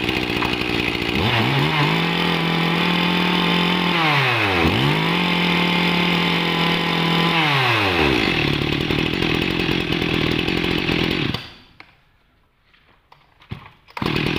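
Shindaiwa 393 40cc two-stroke chainsaw starting up, then revved twice to full throttle for about three seconds each time with the chain spinning free, dropping back to idle in between and after. The engine cuts out about eleven seconds in and is running again near the end.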